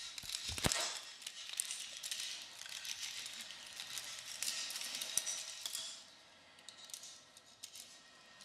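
Paintbrush dragging across a surface, close and amplified: a scratchy, hissing brushing with many small clicks that starts suddenly and fades to fainter scratching about six seconds in.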